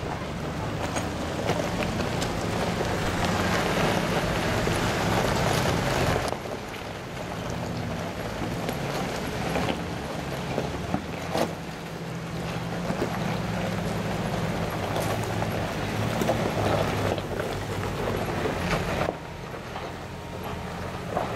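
Off-road 4x4 engines running at low speed as they crawl over a rocky wash, with tyres crunching on loose stones and a few sharp knocks of rock. There is wind on the microphone. The level drops suddenly about six seconds in and again near the end.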